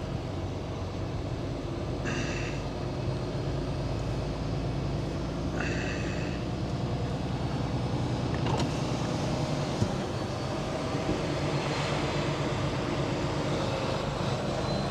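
Semi truck's diesel engine running steadily while the truck moves slowly, heard from the cab, with two short hisses and a single click.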